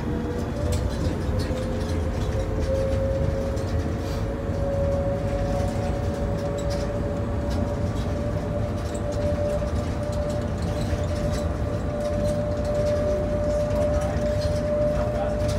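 Airport people-mover shuttle train running, heard from inside the car: a steady low rumble with a motor whine that rises in pitch over the first few seconds and then holds steady.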